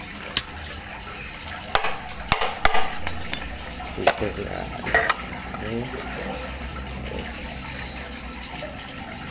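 Sharp clicks and knocks of a plastic submersible pond pump being handled and worked at as its cover is opened for dismantling, about half a dozen spread over several seconds.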